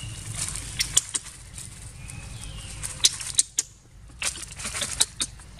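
Footsteps crunching through dry fallen leaves: irregular crackles and snaps of brittle leaf litter, with a short lull about three and a half seconds in.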